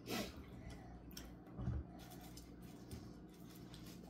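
Quiet room with a few faint, short handling noises, soft knocks and rustles, and a low thump a little under two seconds in.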